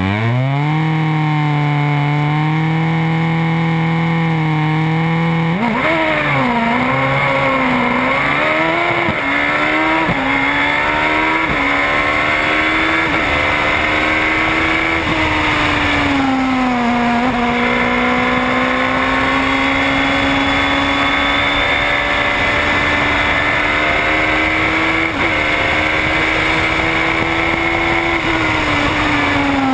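Radical SR4 1500 sports-racer's engine held at steady high revs on the start line, then launching about five seconds in and accelerating hard through quick upshifts, the revs climbing and dropping sharply with each gear change. After that it runs on at high, fairly steady revs with small rises and dips.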